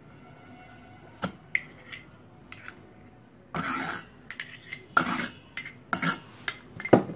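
Metal spoon clinking and scraping against a stainless steel pot as butter is scooped off the block into it: a few sharp clicks, then several short scrapes about a second apart.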